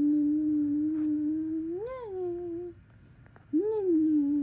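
A person humming: one long held note that swoops up and back down about two seconds in, then, after a short break, a shorter note that rises and falls.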